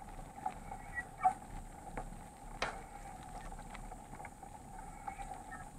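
Mountain bike rolling on a wet paved road, heard through an action camera: a steady rumble of tyres and wind with irregular sharp clicks and rattles from the bike over bumps, the sharpest a little over a second in and again past two and a half seconds.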